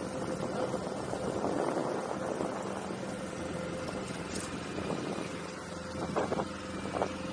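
Boat outboard motor idling with a steady low hum, and a couple of short knocks near the end.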